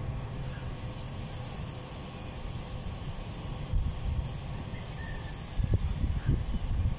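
Outdoor ambience: an irregular low rumble that swells louder about four seconds in and again near the end, with a faint high chirp repeating every half second or so.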